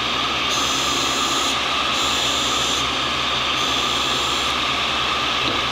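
Tool and cutter grinder's diamond cup wheel grinding a carbide blank over a steady motor hum. A higher grinding hiss swells and fades about every second and a half.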